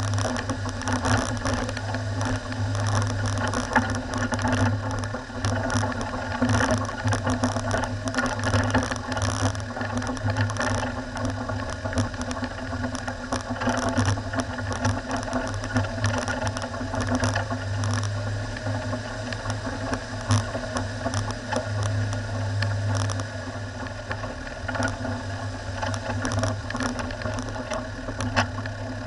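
Four-wheel-drive vehicle's engine running steadily at low speed with a constant drone, under continual rattles and clicks as it jolts over a rough, stony gravel track.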